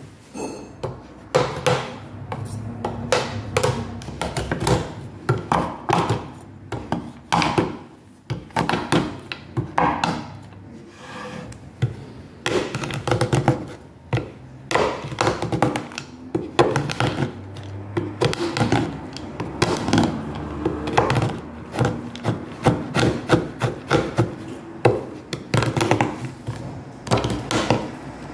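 Chef's knife chopping a bar of dark chocolate on a wooden cutting board: many quick, uneven knocks of the blade hitting the wood as the chocolate cracks apart, starting about a second in.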